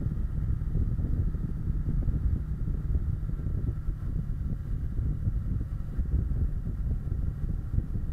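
Wind buffeting the microphone on a moving Kawasaki Versys 650, a steady choppy low rumble, with the bike's parallel-twin engine running underneath.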